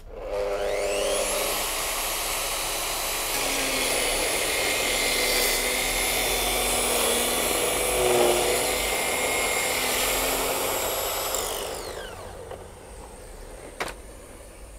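Festool HKC 55 cordless circular saw, fitted with a cutter set for grooving, spinning up with a rising whine, cutting a groove along a timber beam on its guide rail, then winding down with a falling whine near the end.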